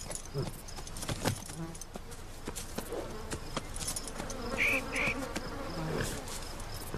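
Outdoor field ambience of insects buzzing steadily, with scattered clicks and rustles of someone moving through grass and two short high chirps about two-thirds of the way through.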